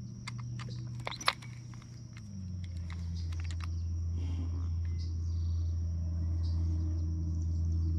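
A low, steady engine drone that drops in pitch about two seconds in and holds there. A steady high insect trill runs behind it, and a few sharp clicks come in the first seconds.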